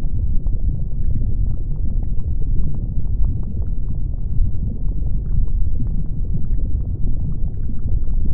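Volcanic eruption and flowing lava: a steady deep rumble with faint, scattered crackles.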